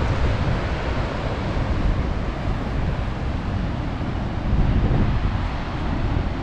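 Wind buffeting the microphone with a steady, uneven low rumble, over the rush of ocean surf breaking against limestone cliffs and sea stacks.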